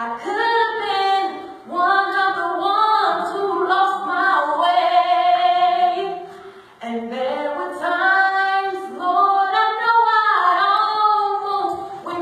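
Female voice singing a slow gospel song in long, sliding runs and held notes, with a brief break about six and a half seconds in.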